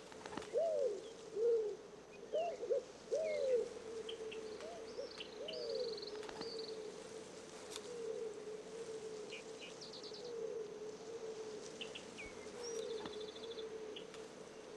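Pigeon cooing: a run of low, rising-and-falling hoots in the first few seconds, then fainter ones now and then. Small birds chirp and trill higher up, over a steady hum.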